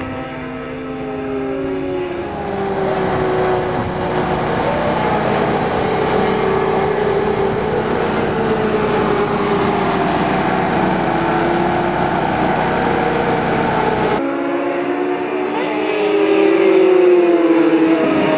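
750cc superstock racing motorcycles at full race pace, several engine notes overlapping and gliding up and down in pitch as the bikes accelerate, brake and sweep past. The sound changes abruptly about 14 seconds in, then louder falling engine notes as bikes pass close.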